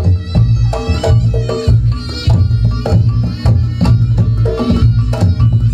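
Reog gamelan ensemble playing: hand drums beat a quick, driving rhythm over deep bass strikes, with a wavering melody line above.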